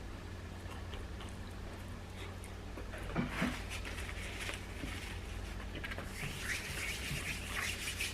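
Quiet room with a steady low hum and a few faint clicks and rustles, the loudest a little over three seconds in.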